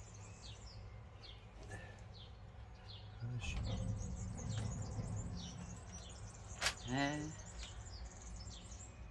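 Small birds chirping throughout, many short falling chirps, over a low steady rumble that grows louder about a third of the way in. About two-thirds through comes a sharp click followed by a short voice sound.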